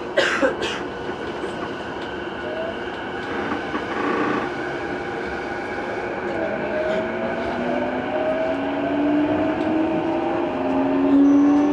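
Running sound inside a JR East E233-2000 series motor car pulling away: two sharp knocks just after the start, then the VVVF inverter and traction motors give a whine that climbs steadily in pitch from about six seconds in as the train accelerates.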